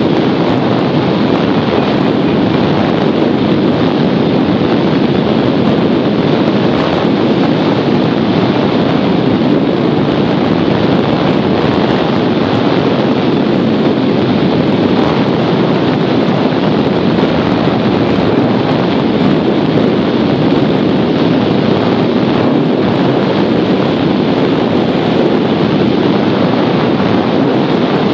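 Steady rush of wind over the camera microphone from the airflow of a hang glider in flight.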